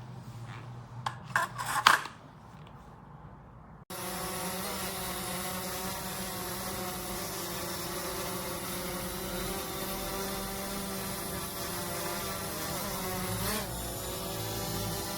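A few handling rubs and clicks, then from about four seconds in a small quadcopter's brushless motors and propellers buzzing steadily, with a brief pitch shift near the end.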